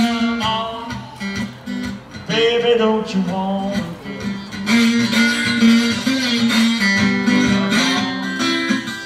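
Blues slide guitar played on an archtop guitar in an instrumental break: notes glide up and down over a steady, repeating bass line.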